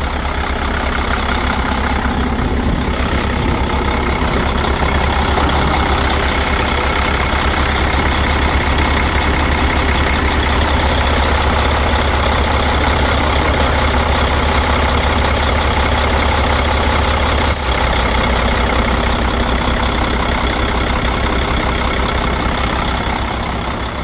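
Mercedes-Benz OM460LA inline-six diesel engine idling steadily, warmed up after about twenty minutes of running.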